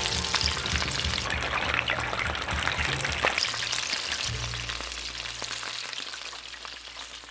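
Spring rolls deep-frying in a pan of hot oil: a dense, steady crackling sizzle of bubbling oil that slowly grows quieter toward the end.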